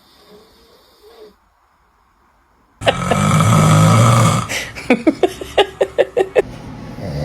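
A man snoring loudly. After a quiet start, one long deep snore comes about three seconds in, followed by a quick run of short, sharp puffs, and another snore begins near the end.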